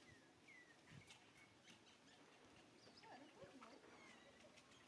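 Faint bird chirps: short falling whistle notes repeated every second or so, with a few lower wavering calls about three seconds in.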